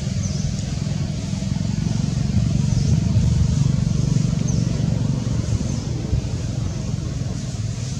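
Low, steady outdoor rumble, swelling slightly midway, with faint short high chirps every couple of seconds.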